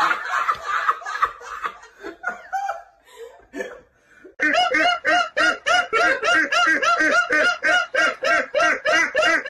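People laughing, fading into a short lull; then, about four seconds in, a man's loud, high-pitched laugh starts, repeating in an even rhythm about four times a second.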